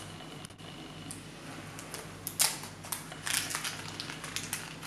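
Small plastic model-kit parts and their clear blister packaging being handled, giving scattered light clicks and crinkles. The sharpest click comes about two and a half seconds in, with a quick run of clicks a second later.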